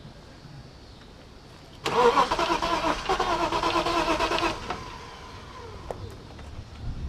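BMW 325is straight-six being cranked by its starter motor for about two and a half seconds, then cut off abruptly without the engine catching. It is a crank-no-start, which the owners put down to the fuel pump or its relay.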